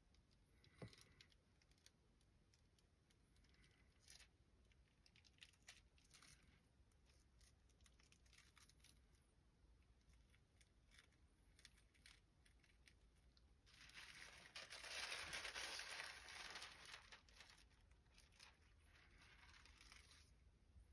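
Mostly near silence with scattered faint ticks, then a few seconds of soft crinkling a little past halfway through as a thin, solvent-damp Hollytex polyester sheet is smoothed and lifted by hand over wet comic pages.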